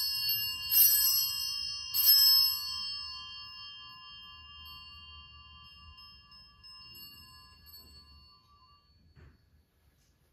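Altar bell struck twice more about a second apart while still ringing from a first stroke, the ringing then fading away over several seconds: the bell rung at the elevation of the consecrated cup in the Eucharistic prayer.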